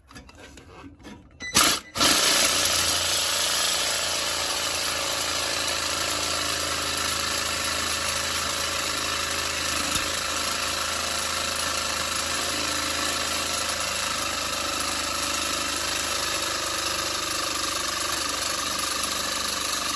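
Reciprocating saw (Sawzall) with a metal-cutting blade cutting through rusted steel exhaust flange bolts. It starts with a short burst about a second and a half in, then runs steadily at full speed.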